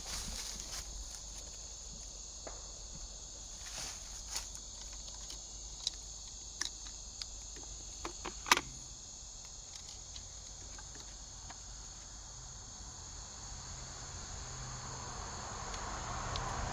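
Insects, likely crickets, chirping steadily in the background, with a few light clicks and knocks, the loudest about halfway through.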